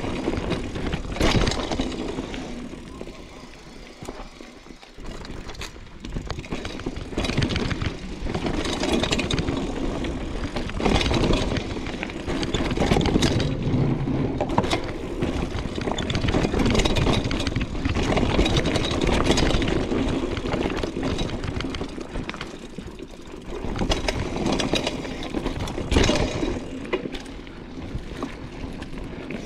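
Mountain bike riding down a dirt downhill trail: a rushing rumble of wind and tyres, with the bike rattling and sharp knocks over bumps, the strongest about a second in and near the end.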